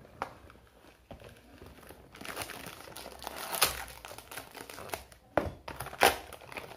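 Clear plastic packaging bag crinkling and rustling as it is pulled out and handled, along with cardboard product boxes being handled. The rustling is irregular, with a few sharper, louder crackles.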